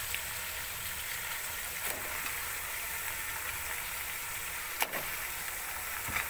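Raw chicken pieces sizzling in hot oil in a large aluminium pot, a steady sizzle being sautéed, with a few sharp clicks about two, five and six seconds in.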